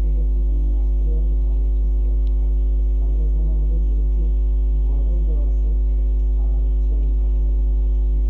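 Steady electrical mains hum: a constant low buzz with a ladder of overtones, unchanging in level throughout.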